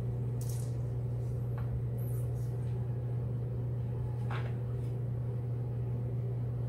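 A steady low hum, like a room fan or appliance, with a few faint soft handling sounds from squishy water-filled stress balls being squeezed in the hand.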